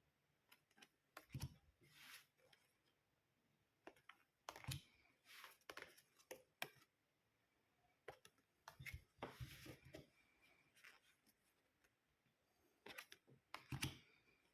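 Tarot cards being handled: faint scattered clicks and soft slides of card stock as cards are picked up, shown and laid down one after another.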